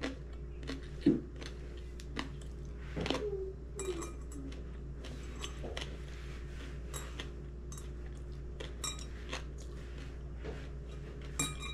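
Cutlery clinking lightly against dishes now and then while someone eats, with scattered small clicks over a faint steady low hum.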